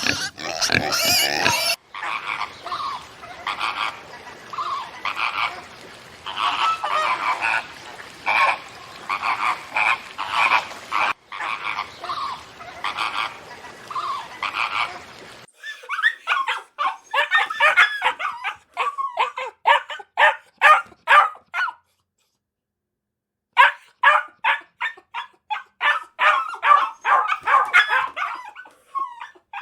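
Farm animals calling in several cut-together clips: first a dense chorus of overlapping calls, then runs of short, quickly repeated calls broken by a brief silence a little past the middle.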